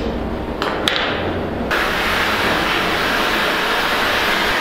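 Gas torch burning with a steady rushing flame, after a few sharp pops as it is lit; about two seconds in the hiss turns brighter and stays level.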